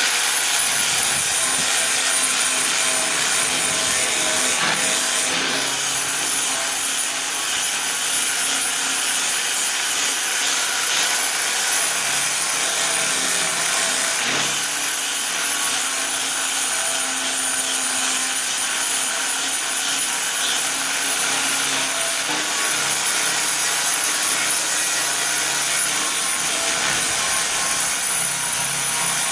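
Angle grinder fitted with a sandpaper disc running steadily against welded car body metal, a loud whine and rasp of the weld being sanded smooth.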